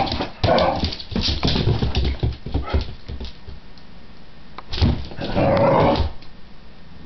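Pit bull whining and yipping in short excited bursts, the longest and loudest about five seconds in, with scattered thumps as it moves about.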